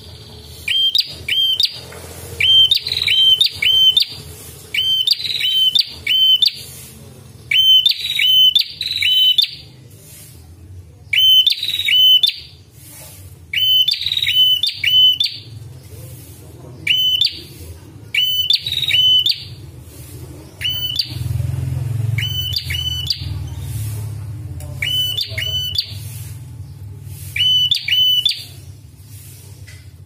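Ashy tailorbird (prenjak kepala merah) singing: sharp, clipped chirps in quick bursts of two to four, a new burst every second or two, over a steady low hum.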